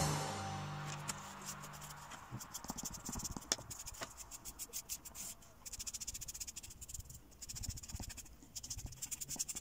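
Faint, quick, irregular strokes of a graphite pencil scratching on drawing paper, after background music fades out in the first second.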